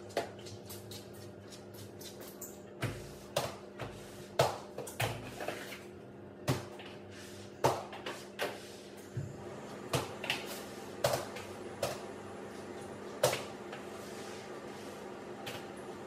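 Irregular knocks, clacks and a few dull thumps of objects being handled and set down on a counter, some sharp and loud, over a steady low hum.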